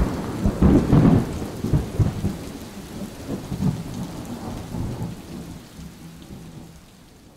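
Rolling thunder, loudest about a second in and slowly dying away.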